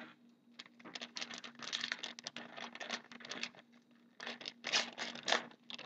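A trading-card pack wrapper being crinkled and torn open by hand: a dense run of quick crackling rustles, with a few louder crackles near the end.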